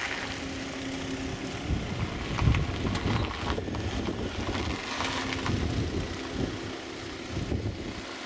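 Wind buffeting the camcorder's microphone: a gusty low rumble that swells and dips, with a faint steady hum coming and going and a few light clicks.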